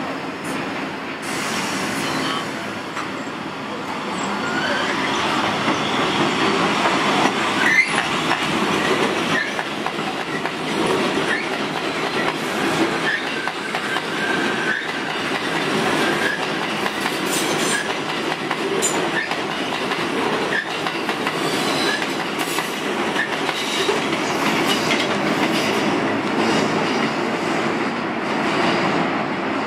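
A New York City Subway train of R62A cars running past on the rails, with steady rumble and rapid clicking of wheels over rail joints. Loudness builds a few seconds in as the train comes close, and there is a brief faint wheel squeal partway through.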